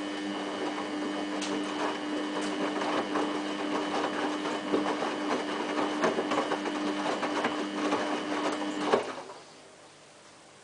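Samsung WF8804RPA front-loading washing machine running in its first rinse: a steady mechanical hum over a crackling noise, which stops abruptly with a click about nine seconds in.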